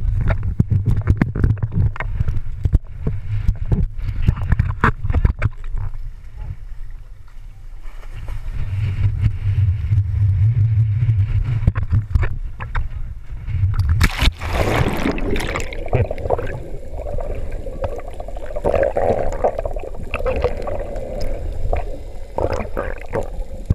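Water slapping and sloshing around a camera's waterproof housing at the sea surface, over a low rumble and many sharp knocks. About fourteen seconds in there is a loud splash, and after it the sound turns to a muffled underwater rushing and bubbling.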